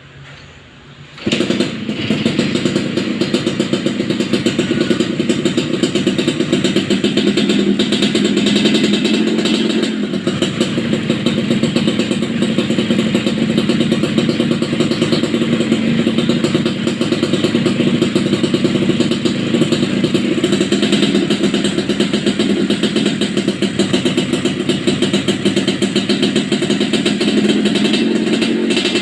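Yamaha RX-King's single-cylinder two-stroke engine comes in loudly about a second in, then runs steadily with a fast, even exhaust beat.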